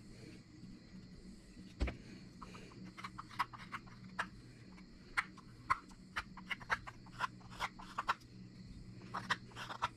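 Carving knife taking short, crisp cuts into a cherry-wood spoon blank, an irregular run of quick slicing strokes one to three a second, starting after a single knock about two seconds in.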